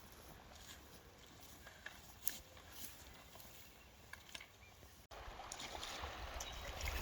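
Faint rustles and light snaps of people walking through woodland. After a cut about five seconds in, a louder, steady rushing noise rises.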